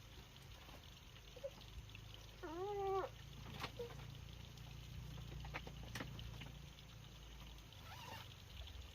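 A single short animal cry, rising then falling in pitch, about two and a half seconds in, with a few faint clicks around it.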